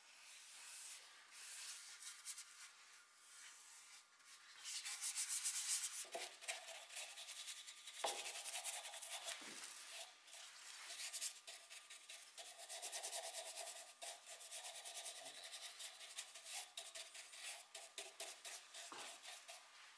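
Flat paintbrush bristles rubbing and scratching along bare pine wood as finish is brushed on, in uneven back-and-forth strokes.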